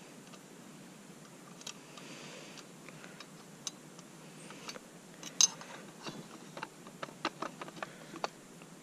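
Clicks and knocks of an airsoft Sten gun's stock and receiver parts being worked loose and pulled off by hand. Scattered sharp ticks, one louder about halfway through, then coming faster near the end.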